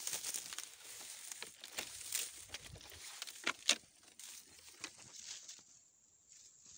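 Dry grass crackling and rustling as someone walks through it, the stalks brushing past, with a sharp crackle about three and a half seconds in; it goes quieter near the end.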